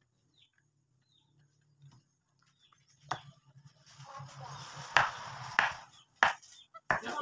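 Knife cutting asparagus on a wooden cutting board: a few sharp taps of the blade on the board, starting about three seconds in, with a rustling scrape between them.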